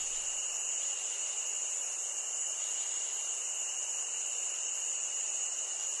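Steady, unbroken chorus of night insects, a dense high-pitched drone.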